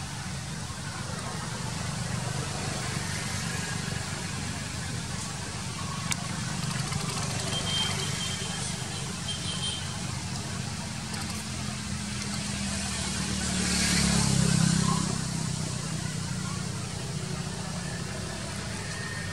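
Steady low outdoor rumble with a hiss above it, swelling louder for a couple of seconds about two-thirds of the way through, with faint voices in the background.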